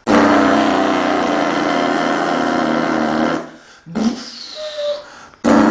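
Truck engine running steadily. It dies away after about three and a half seconds, a brief high whine falls in pitch, and then the engine sound cuts back in abruptly near the end.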